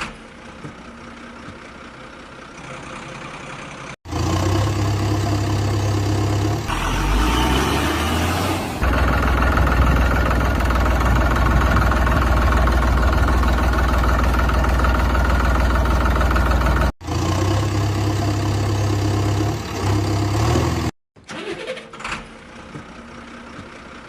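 Diesel-type engine running, loud and steady for long stretches, with abrupt cuts where the sound stops and restarts several times.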